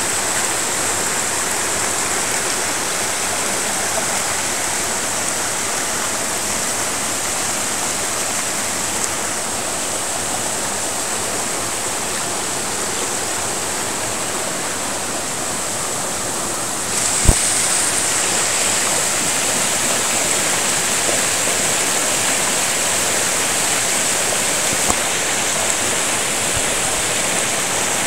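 Steady rushing and splashing of a small, clear mountain stream tumbling over rocks in little cascades. About seventeen seconds in it grows a little louder and brighter, with a single sharp knock at that moment.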